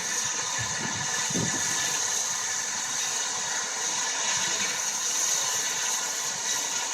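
Steam locomotive Eddystone standing with a steady hiss of escaping steam, with a short low rumble about a second in.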